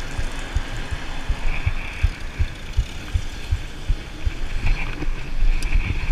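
Wind noise and irregular low thumps on a handlebar-mounted camera's microphone as a bicycle rides along a road.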